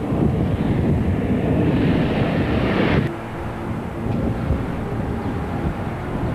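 Jet noise from a Boeing 737-200 Advanced's Pratt & Whitney JT8D engines as the airliner flies away, a rough rushing sound that grows brighter and hissier. About three seconds in it cuts abruptly to a quieter, more distant rumble with a faint steady whine.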